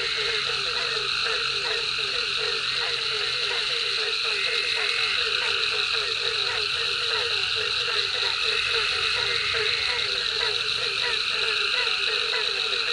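A dense chorus of frogs calling at a pond: many short, overlapping calls, several a second, over a steady high-pitched hum.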